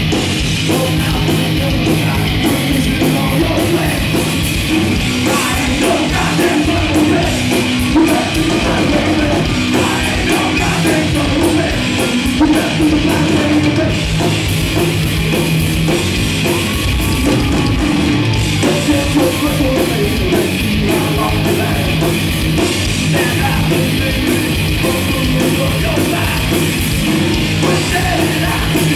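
Live heavy rock band playing loud: electric guitars and a drum kit at a steady driving beat, heard through the club's PA from among the crowd.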